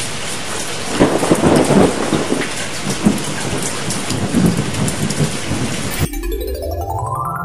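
Steady heavy rain with rolls of thunder, about a second in and again around four seconds. About six seconds in the rain cuts off suddenly and synthesizer music starts, its tones climbing in pitch.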